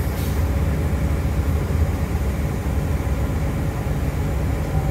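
Steady low rumble of a narrow-gauge diesel railcar in motion, heard from inside its passenger saloon: engine drone mixed with running noise from wheels and track.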